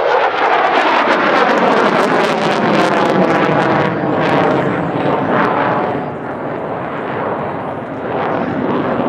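F-16 Fighting Falcon jet roar passing by, loud, its pitch falling over the first couple of seconds as it goes past, easing a little later and building again near the end.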